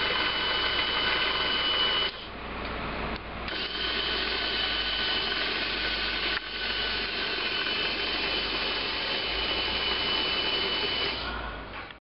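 B&D MPC2 roller door opener's geared motor running and turning the drum, with a steady whine. It drops away about two seconds in, picks up again a second or so later, falters briefly about six seconds in, and winds down near the end.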